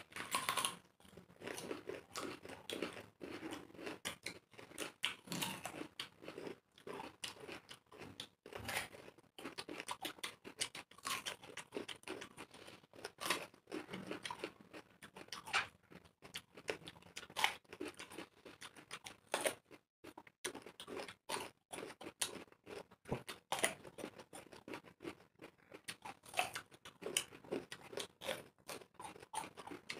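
Two people biting and chewing crisp Thai apple ber (jujube) fruits close to the microphone: a dense, unbroken run of crunches and chewing, the bites overlapping.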